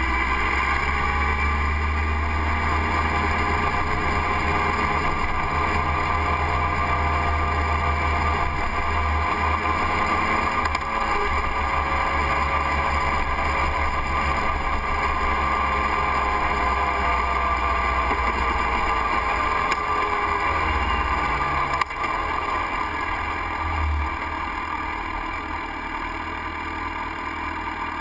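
Motorcycle engine running under way, with wind and road noise on the onboard microphone; the engine sound slowly shifts in pitch as speed changes. About 22 seconds in, the level steps down, and from about 24 seconds the bike is quieter as it slows to a stop.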